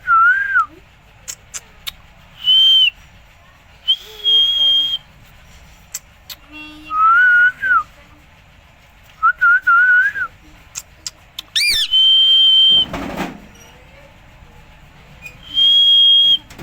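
A series of clear whistles: short wavering notes alternating with high notes held level for about half a second to a second, with a sharp rising chirp about two-thirds of the way through, followed by a brief rasping noise. A few light clicks fall between the whistles.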